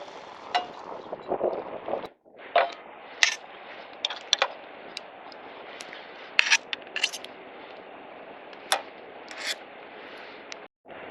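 Irregular sharp clicks and knocks, a dozen or so, over a steady background hiss; the sound drops out briefly about two seconds in and again near the end.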